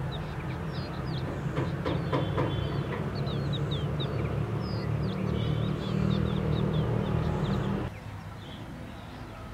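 Small birds chirping in short, quick calls throughout, over a loud low steady hum like distant traffic or machinery that drops away suddenly near the end. A few faint clicks come about two seconds in.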